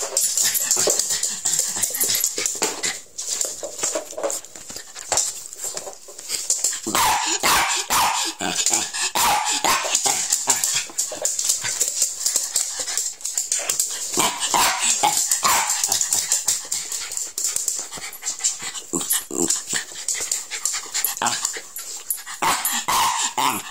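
Terrier barking, yipping and whining in short calls over a dense run of clicks and knocks.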